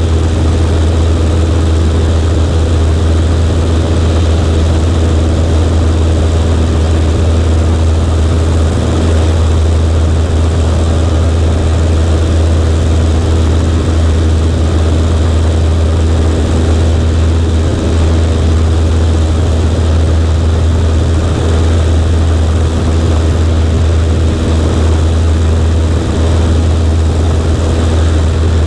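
Cessna 140A's air-cooled flat-four piston engine and propeller running steadily at a constant setting, a loud even drone with no change in pitch.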